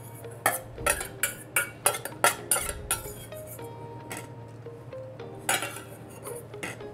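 Small metal spatula clinking and scraping against a dish as trout tartar is spread and flattened: a quick run of about a dozen sharp taps in the first three seconds, then a short cluster of taps near the end.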